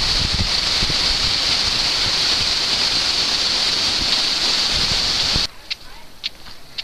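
Waterfall rushing, a loud steady roar of falling water with wind gusting on the microphone. It cuts off suddenly about five and a half seconds in, leaving a much quieter background with a few faint short ticks.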